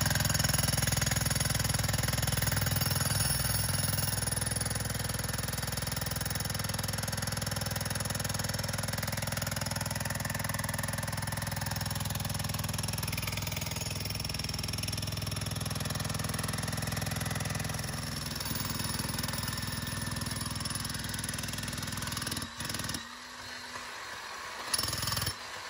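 Jackhammer running continuously with rapid hammering, breaking into rocky ground in a window-well pit where a large rock is in the way. It eases somewhat about two-thirds of the way through and stops and starts briefly near the end.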